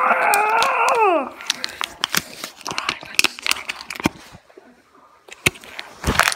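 Clear plastic blister packaging being handled and opened, crinkling with scattered sharp clicks and crackles. A drawn-out wavering voice-like note falls in pitch and stops about a second in, and there is a heavy thump near the end.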